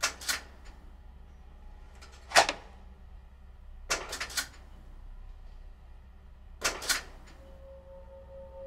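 A few sharp clicks or knocks, single and in quick pairs, spaced a couple of seconds apart over a low steady hum; a steady tone comes in near the end.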